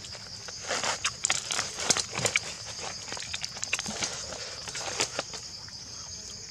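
Hands tearing and handling a roasted duck on a bed of leaves: irregular crackles and snaps of crisp skin and joints with rustling leaves, busiest in the first half and again about five seconds in.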